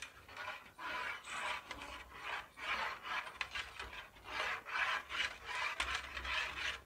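Metal hand whisk beating gram-flour batter into yogurt in a steel pot: rhythmic wet swishing strokes, about two to three a second, starting about a second in.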